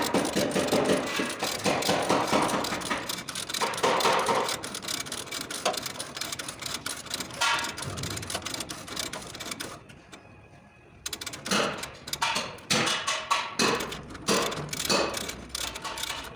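Rapid clicks and knocks of bodywork repair on a car's damaged front metal, with a brief lull about ten seconds in before separate knocks resume.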